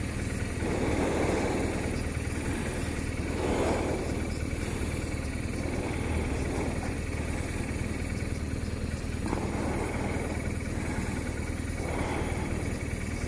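BMW R1200 RT's boxer-twin engine idling steadily while the bike stands in traffic, with a few passing swells of hiss.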